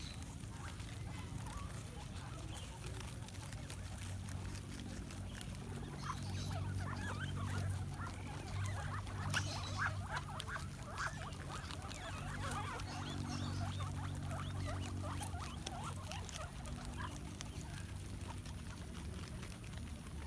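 A crowd of guinea pigs feeding on cabbage leaves: many quick crisp crunches and rustles of chewing and moving leaves, busiest from about six to twelve seconds in, over a low steady hum.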